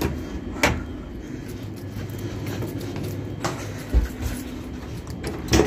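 Steady low hum inside a stationary train, with a few sharp clicks and a low thump from handling the fittings. The first click comes about half a second in, as a fold-down seat-back table is handled, and two more clicks come near the end.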